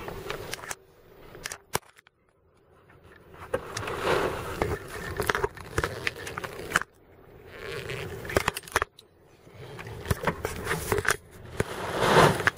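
Surf breaking against a rock seawall, heard from inside a parked vehicle's cab: rushing surges that build and fall away three times as spray washes over the car, with crackling, scraping clicks from the camera being handled.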